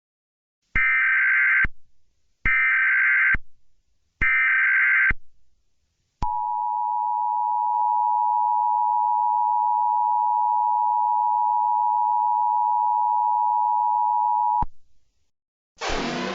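Emergency Alert System broadcast tones: three short bursts of the digital SAME header data, each just under a second, then the long steady two-tone EAS attention signal, held for about eight seconds before it cuts off suddenly.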